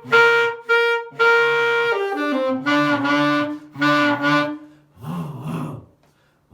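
Saxophone played with the growl technique. The player hums a low note in the throat into the horn while blowing, so the voice mixes with the sax tone into a rasping buzz. First comes a held higher note of about two seconds, then several shorter lower notes.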